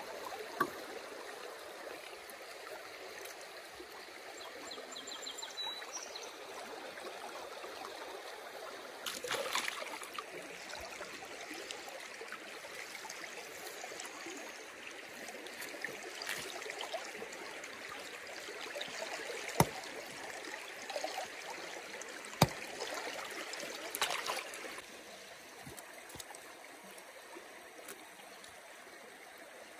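Steady rush of a flowing stream, with two sharp clicks in the second half.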